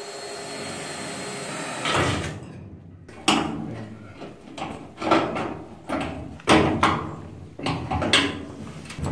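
A cordless drill running briefly, then a run of metal knocks and scrapes about once a second as a hand tool works on the steel tailgate to fit a rubber bumper.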